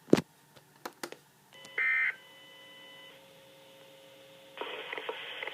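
Weather radio speaker playing the end of an Emergency Alert System test. A sharp click comes first, then a short warbling burst of EAS digital data tones about two seconds in: the end-of-message code that closes the alert. Near the end the broadcast's hiss comes back up.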